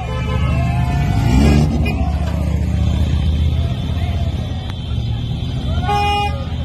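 Lamborghini Huracán engine running as the car rolls slowly along, with a brief rev that peaks about a second and a half in.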